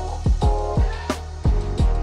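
Background music with a steady beat: deep kick-drum thumps that drop in pitch and a sharp snare hit about a second in, over sustained chords.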